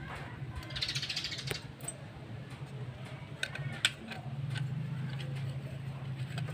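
Light metallic clicks and taps from an aluminium motorcycle side cover and its stator being handled. There is a brief rustle about a second in and a sharper click near four seconds. A low steady hum runs underneath.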